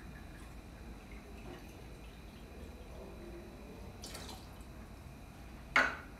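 Cachaça poured from a glass bottle into a small metal measure over a pot of wine, trickling and dripping faintly. A single sharp knock near the end.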